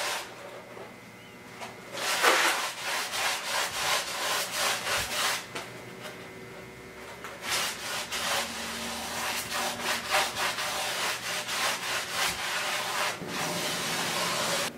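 Paintbrush scrubbing water-based contact cement onto a foam block: runs of quick, scratchy brush strokes, several a second, with a short pause in the middle.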